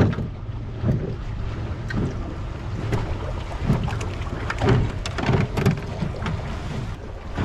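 Wind rumbling on the microphone aboard a small fishing boat, with scattered light knocks.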